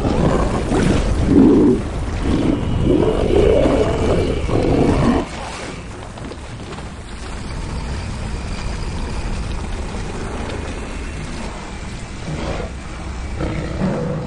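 Film sound effect of a giant sabre-toothed tiger growling and snarling in a run of loud, rough calls that cut off suddenly about five seconds in. Steady rain and water noise follows, with a brief growl again near the end.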